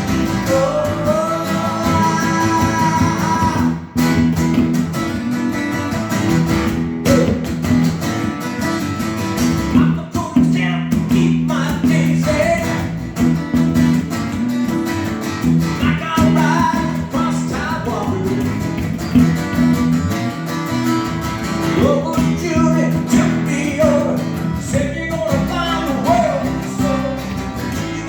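Guitar music: chords played on a guitar with a wavering melody line over them.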